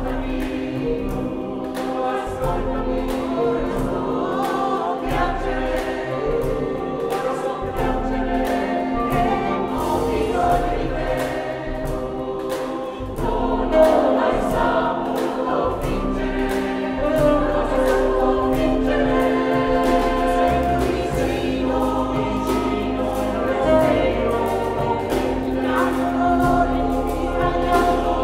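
A choir singing a slow piece in several parts over a sustained low note, with a light, regular ticking beat beneath.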